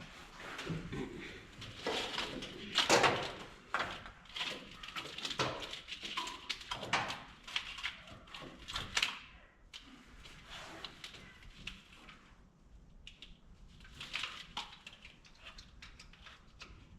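Irregular clicks, knocks and rustling of parts being handled, busiest in the first half and sparser later.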